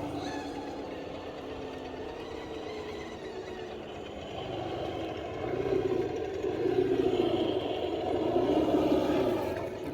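RC crawler's electric motor and gearbox whining as it drives, getting louder about halfway in and dropping back just before the end.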